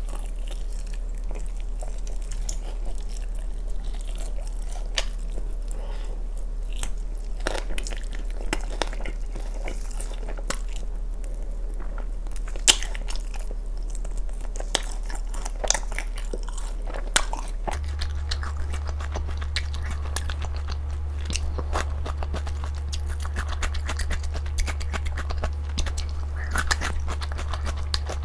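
Close-miked chewing and biting of sticky, sauce-glazed garlic fried chicken: crisp batter crunching in many sharp crackles, with wet mouth sounds and a steady low hum underneath.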